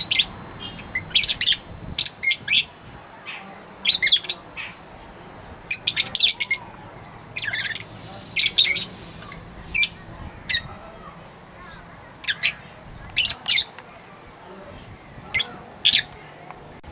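Fischer's lovebirds chirping: short, shrill, high-pitched calls in quick clusters of a few notes, repeating every second or two.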